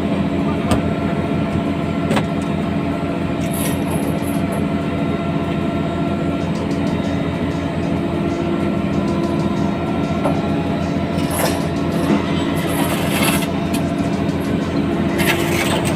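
Fishing boat's engine and deck machinery running with a steady low drone, with a few short knocks and clatters of gear on the deck.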